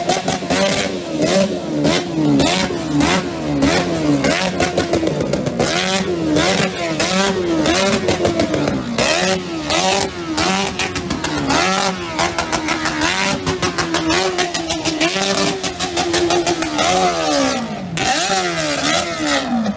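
Motorcycle engine revved hard over and over while standing still, its pitch rising and falling about once a second, with sharp crackles and pops throughout.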